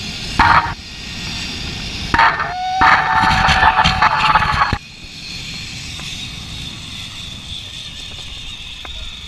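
Wind rushing over the microphone during a fast ride, with a woman's short whoops and one long held whoop ending about five seconds in; after that a steady rushing hiss.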